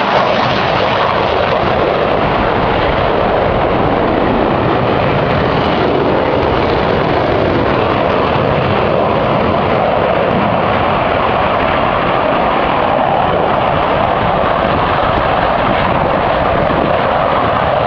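Steady, loud roar of Blue Angels F/A-18 Hornet jet engines, with no letup.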